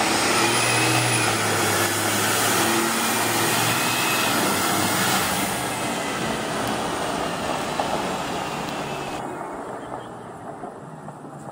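Diesel engine of an M1088 military tractor truck running as the truck drives off across gravel; the sound fades over the last few seconds as it moves away.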